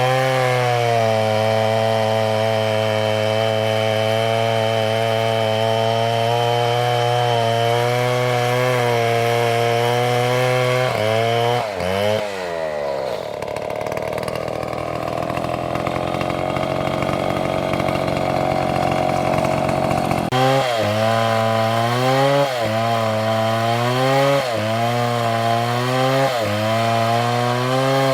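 STIHL two-stroke chainsaw running at high revs. About a third of the way in its pitch swings and the sound turns rougher and noisier for several seconds, then near the end the revs dip and recover about once a second as it works through the oak.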